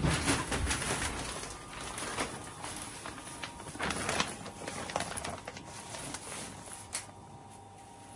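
Rustling and light knocks as a reflective curtain is pushed aside and someone moves about a small room, thinning out after about five seconds to a faint steady hum.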